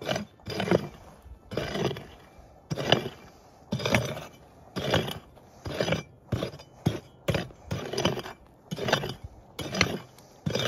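Prospector's pick striking and scraping into stony gravel soil, about once a second, with small stones clinking: digging out a metal detector target.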